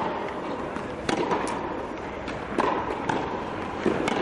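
Tennis balls being struck with a racket and bouncing on an indoor court: a handful of sharp pops roughly a second apart, with a short ring after each in a large hall.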